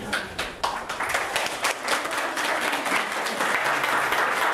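Audience applauding: a few scattered claps at first, swelling into dense, steady applause after about a second.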